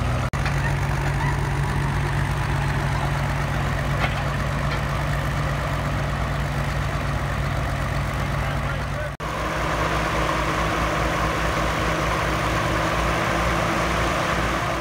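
Caterpillar D6B crawler dozer's diesel engine running steadily under load as the machine climbs onto a lowboy trailer. There is a very short break about nine seconds in, after which the engine sounds a little brighter.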